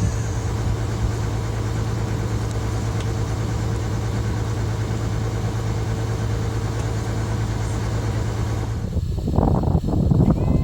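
Engine idling steadily with a low, even hum. About nine seconds in, gusts of wind buffeting the microphone take over.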